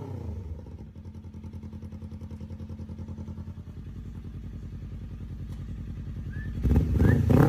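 Kawasaki ZX-10R's inline-four engine dropping back from a rev and idling with an even, fast pulsing beat, then revved again near the end.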